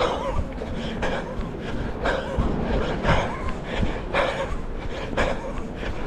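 A runner's heavy breathing, a hard puff about once a second, over wind rumble on the microphone.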